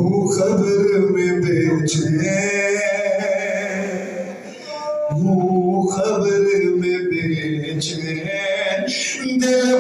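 Men's voices chanting a noha, a Shia mourning lament, unaccompanied: a lead reciter with the mourners joining in. It comes in two long sung phrases with a short break about five seconds in.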